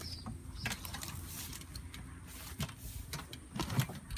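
Dry hay rustling and crackling as it is pushed down and packed into a homemade plywood box baler, with scattered small knocks and clicks.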